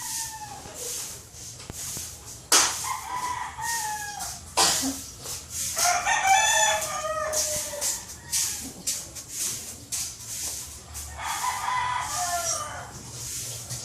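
Rooster crowing three times, each a long call of one to two seconds, several seconds apart.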